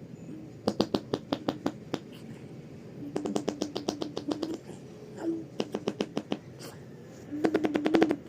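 A baby boy making a sputtering motor-pump sound with his mouth: four bursts of rapid pulses, about seven a second, some over a low hum of voice.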